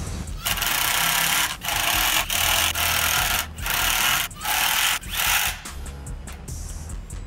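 Cordless impact driver hammering a long screw into a clamped cherry frame in about six stop-start bursts, the later ones shorter as it drives home. Background music runs underneath.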